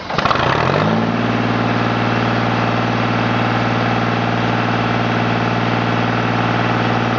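Diesel engine of a Carlton 7015 stump grinder catching after start and rising in pitch, then settling within about a second into a steady idle.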